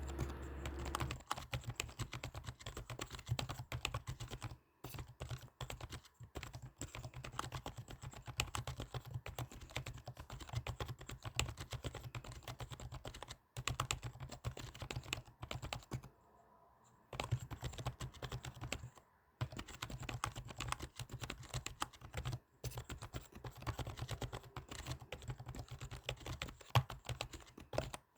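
Fast typing on a computer keyboard: a steady stream of key clicks with a few brief pauses, the longest about two-thirds of the way through.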